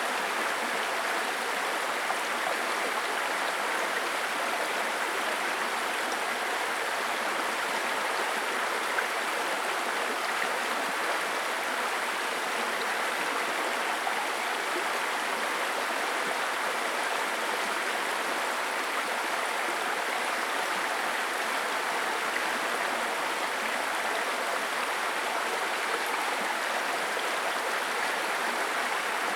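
A babbling brook: shallow stream water running and splashing over stones in a steady, even rush.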